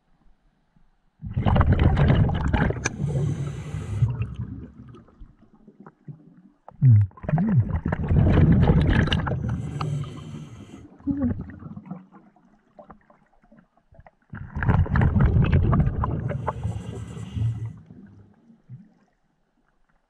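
Scuba diver breathing through a regulator underwater: three long exhalations, each a gurgling rush of bubbles lasting about four seconds, with quiet gaps for the inhalations between.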